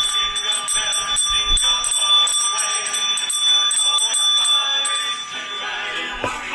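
Small brass hand bell rung rapidly and repeatedly, a bright steady ringing that stops about five and a half seconds in.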